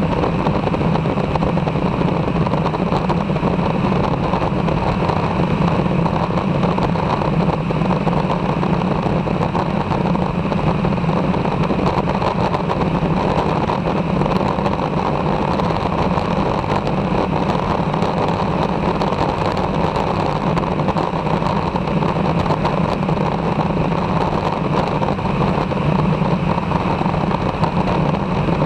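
Aeroprakt Foxbat light aircraft in flight: its engine and propeller drone steadily and evenly, mixed with the rush of airflow.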